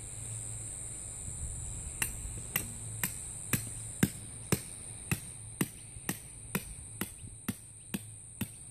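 Hammer striking a tent peg to drive it into the ground: a steady run of about fourteen sharp blows, about two a second, starting about two seconds in and getting lighter near the end.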